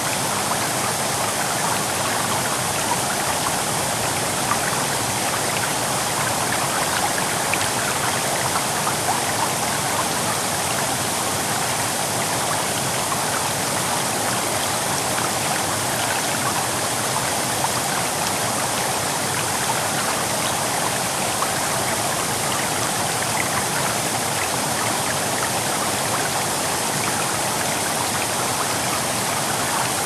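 Waterfall and the water running over the rocks below it, a steady, unbroken rush.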